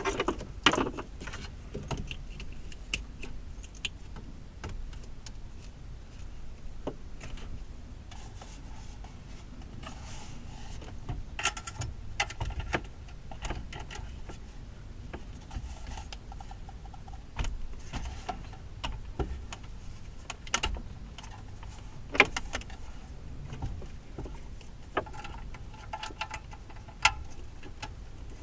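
Scattered clicks, taps and rustling of wires and plastic connectors being handled as a wiring harness and antenna lead are plugged into a car radio, over a low steady rumble.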